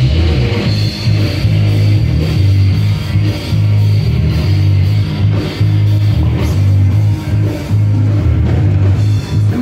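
Live rock band playing, with electric guitar over a heavy, pulsing bass and drum-kit beat.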